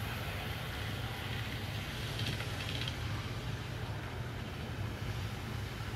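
Old Trix DCC model steam locomotives running on track, giving a steady hum of motor and wheels on the rails. They have no sound decoders, so this is plain mechanical running noise, with no chuffing or whistle effects.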